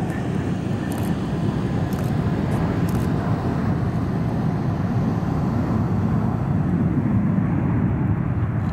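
Steady low rumble of a Boeing 737 airliner's jet engines as it moves on the airfield, growing slightly louder near the end.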